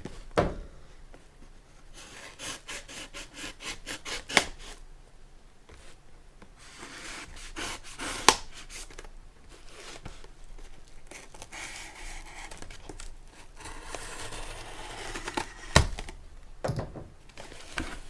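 A cardboard shipping box being opened by hand: tape tearing and flaps and packing scraping and rustling in repeated strokes. Three sharp knocks come about four, eight and sixteen seconds in.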